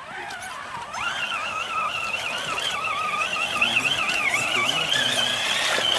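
Scale RC crawler's electric motor and gears whining as it drives through muddy water. The whine comes in about a second in, and its pitch wavers up and down with the throttle over a wash of splashing.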